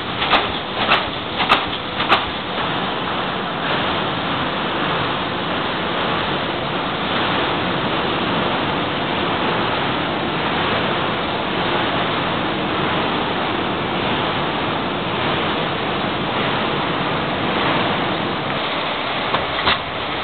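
Schlatter welded-mesh machine working, with sharp clacks about every half second for the first two seconds. These give way to a loud, steady rushing noise of factory machinery, with a couple of faint clicks near the end.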